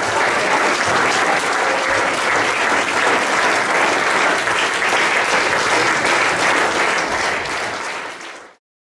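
Audience applauding steadily, fading out and stopping near the end.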